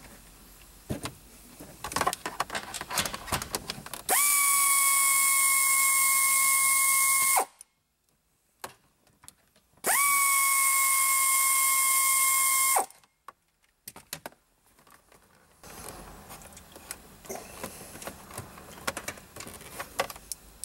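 Power drill run in two steady bursts of about three seconds each, backing out the two bolts that hold the shifter assembly. Each burst rises quickly in pitch as the motor spins up, then holds one steady whine. Scattered clicks and handling knocks come before and after.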